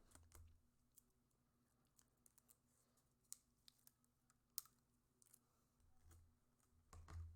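Faint handling noise: scattered small clicks and light taps, one sharper click about two-thirds of the way through, and a couple of soft low thumps near the end.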